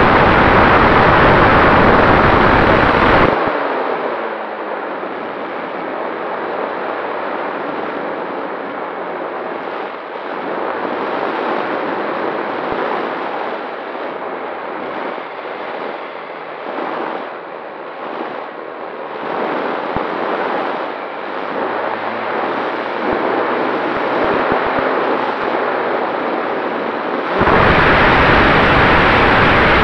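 Onboard sound of a radio-controlled Cessna 188 model plane in flight. The motor and propeller run loud for about three seconds, then drop abruptly to a softer, gusty rush of wind for most of the clip as the power comes off. The full engine noise cuts back in suddenly near the end.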